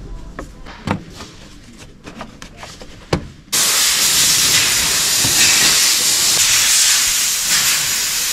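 Hard plastic clicks and knocks as the air intake hose is pushed onto its fitting. About three and a half seconds in, a loud steady hiss starts suddenly and carries on.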